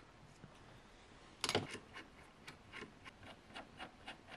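Faint clicks and taps of small metal parts and a hex key being handled, with a louder clatter about a second and a half in and lighter irregular ticks after it.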